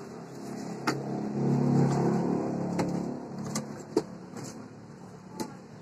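Low engine rumble of a passing vehicle, swelling about a second in and fading away by about four seconds. Several sharp clicks and knocks of a helmet box and its packaging being handled come over it.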